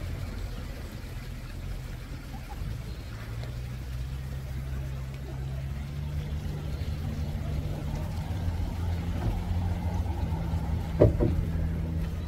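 A motor running steadily with a low hum whose pitch rises a little early on, and a sharp knock about eleven seconds in.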